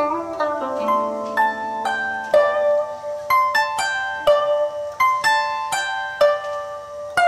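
Background music: a melody of plucked string notes, each struck sharply and left to ring.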